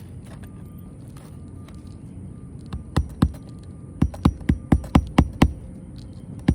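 Hammer driving roofing nails through an asphalt shingle: two blows about three seconds in, then a quick run of about seven blows at about four a second.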